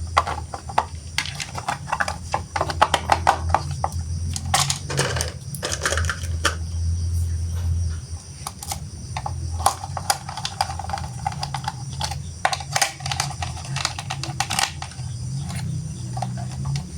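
Irregular clicking, tapping and rattling of hard plastic toy parts being handled and fitted together, over a steady low hum.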